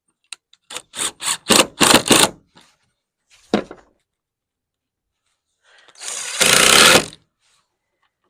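A handheld power tool run in short trigger bursts: about six quick pulses, one more a second later, then one longer run of about a second near the end.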